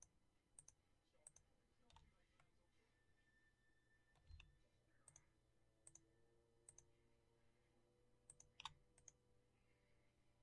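Near silence broken by about a dozen faint, sharp clicks of a computer mouse and keyboard, several coming in quick press-and-release pairs, over a faint steady hum.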